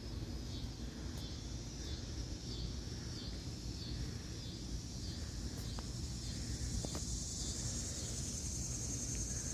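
Insects calling in a high chorus, one call pulsing about twice a second, with a steadier, higher trill growing louder in the second half, over a constant low rumble.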